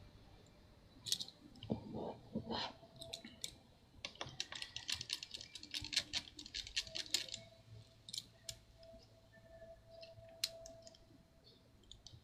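Small metal tools clicking and scraping against a MacBook Pro's hinge cover and bracket while prying at it. The light, irregular ticks run together into a quick flurry in the middle.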